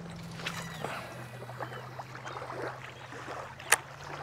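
A steady low motor hum that drops in pitch about a second in, under small scattered water splashes and ticks, with one sharp click near the end.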